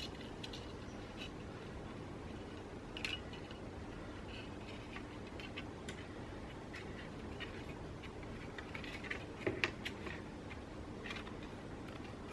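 Faint, sparse clicks and taps of small tools and phone parts being handled during a smartphone teardown, with a short run of louder ticks about nine to ten seconds in.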